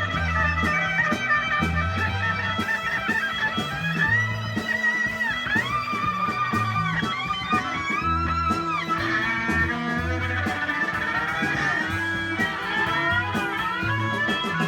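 Live rock band playing an instrumental passage: electric guitar with bending lead notes over bass guitar and drums.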